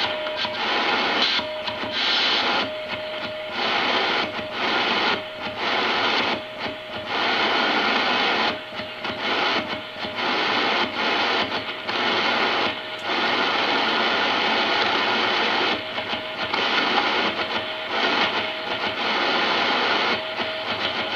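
A Morse code (CW) signal, a single mid-pitched tone keyed on and off, heard through the speaker of a National NC-183D tube communications receiver. It sits under loud, rough hiss of 40-meter band noise that swells and drops.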